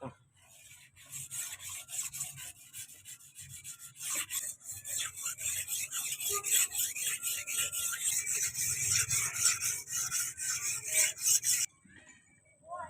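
A steel blade being worked by hand against an abrasive in quick back-and-forth rasping strokes, several a second. The strokes grow louder about four seconds in and stop abruptly near the end.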